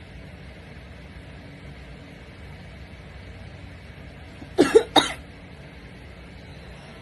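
Two quick explosive bursts from a person's nose and throat, about half a second apart, over faint steady background hiss: a reflex reaction to a nasal swab test.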